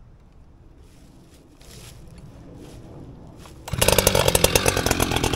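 A new Echo CS-620PW two-stroke chainsaw starts up a little under four seconds in and runs loudly with a fast, even engine beat, after a few faint scraping sounds. This is its first start.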